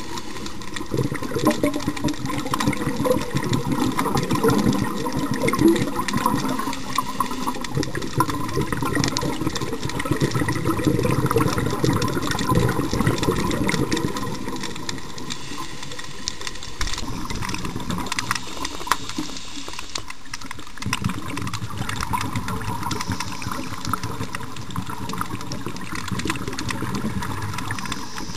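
Underwater sound of spiny lobsters clicking and rattling, many sharp clicks in quick succession, over a steady rush of bubbling water that eases about halfway through.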